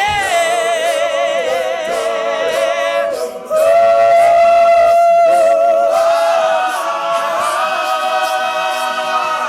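All-male a cappella group singing the closing chords of the song, with a lead voice's vibrato over held harmonies. After a brief break about three seconds in, a louder chord is held for several seconds and cut off together at the end.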